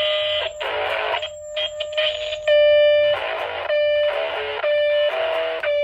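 Distorted electric guitar chords struck about once a second on a DiPinto Galaxie played through its own built-in high-gain amp. Between the chords a steady feedback tone rings on, because the pickup sits right next to the guitar's own speaker.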